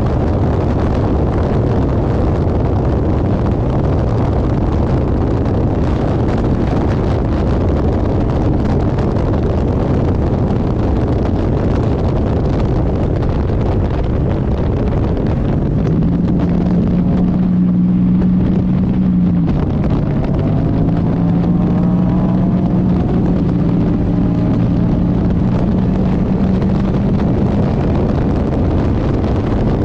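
Race car's GM engine running at speed under heavy wind noise on the microphone. A bit past halfway its note steadies and stands out, drops briefly, then climbs slowly again.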